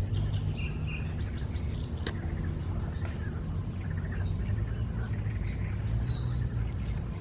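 Small birds chirping and calling, many short high notes scattered throughout, over a steady low rumble. A single sharp click about two seconds in.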